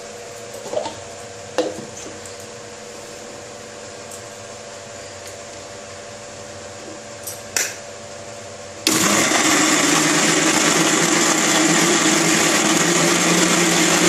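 Electric mixer grinder switching on abruptly about nine seconds in and running steadily at full speed, blending boiled green mango with ice cubes. Before it starts, a few light clicks and knocks as the jar is handled on its base.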